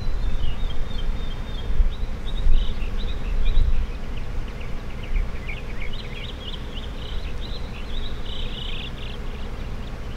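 A low, uneven rumble like wind on the microphone, with a small bird chirping quick high notes over it for most of the stretch.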